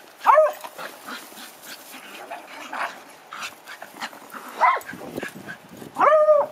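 Dogs barking while they play: a sharp bark right at the start, a short one about four and a half seconds in, and a longer, louder one near the end.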